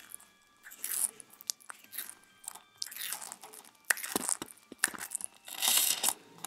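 A tortoise biting and chewing soft plum flesh close to the microphone: irregular wet, crunchy bites, with the longest and loudest run of chewing near the end.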